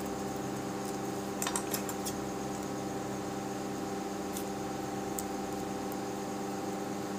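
A steady hum throughout, with a few light clicks and snips of steel scissors cutting a small paper tag.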